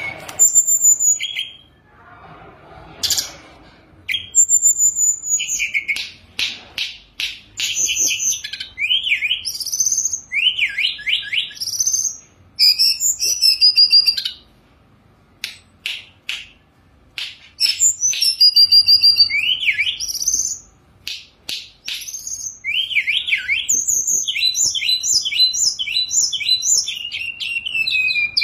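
Hill blue flycatcher (tledekan gunung) singing a varied song of clear whistled phrases, quick downward sweeps and fast trills, in bursts with short pauses between them.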